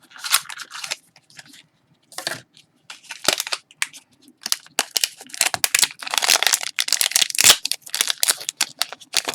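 Blind-bag packaging of a mystery pin being torn open and crinkled by hand, in irregular crackling bursts that get busier in the second half.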